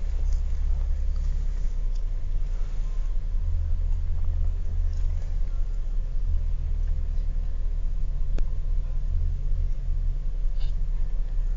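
Steady low rumble of a car, with no other sound standing out.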